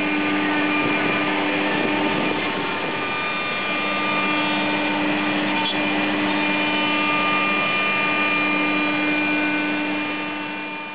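CNC router running, a steady machine noise with a steady whine over it, as it cuts MDF; it fades out near the end.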